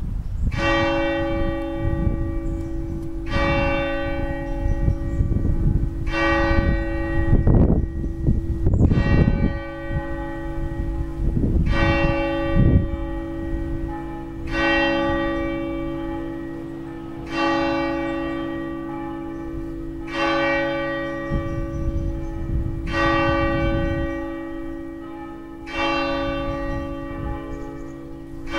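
Church bells tolling: one slow stroke about every three seconds, each ringing on with many overtones over a lingering low hum from the bells. Gusts of wind rumble on the microphone about a third of the way in.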